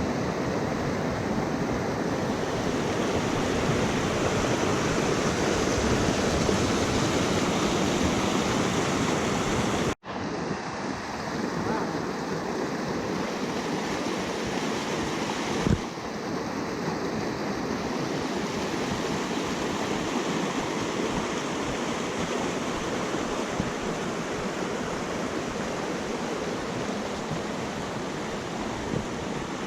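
Creek water rushing, a steady rush without pause. The sound cuts out for an instant about ten seconds in, and a single short knock comes near the middle.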